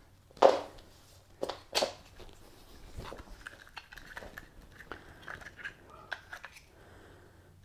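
Hard plastic clacks and clicks from handling and working the Ryobi lawn mower's handle and activating lever after plastic has been trimmed off it: a sharp clack about half a second in, two more a second later, then lighter clicks and rattles.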